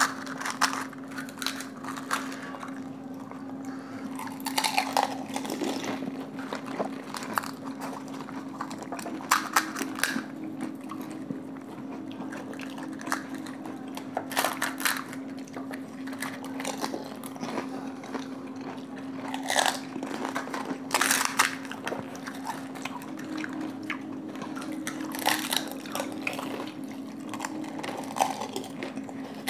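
Crisp panipuri shells cracked open and bitten, with irregular crunching and chewing. A steady low hum runs underneath.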